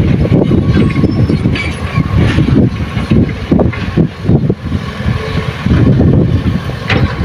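Loaded dump truck driving slowly along a dirt haul road, its diesel engine running with a loud, uneven low rumble.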